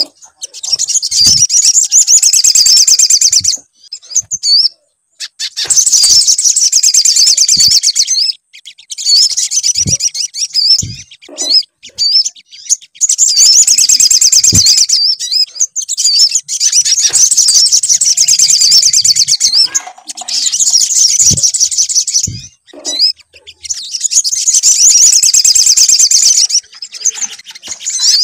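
Sogon (sogok ontong) sunbird song: phrases of rapid, high chittering trills a few seconds long, repeated with short pauses, played as a lure recording to provoke a kept bird into singing. A few brief low thumps come between phrases.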